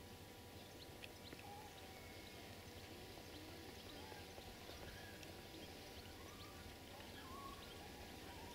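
Faint outdoor ambience: scattered short bird chirps and small wavering animal calls, over a faint steady hum.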